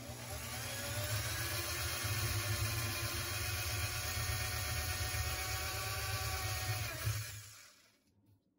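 Electric drill running steadily as a 1/4-inch bit bores into a black plastic sink drain pipe; the motor winds down and stops near the end.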